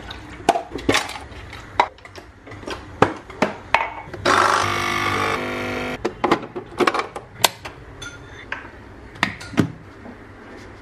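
Capsule coffee machine's pump buzzing steadily for about two seconds midway through as it brews into a mug. Around it, scattered clicks and knocks of the machine's lever, water tank and cups being handled.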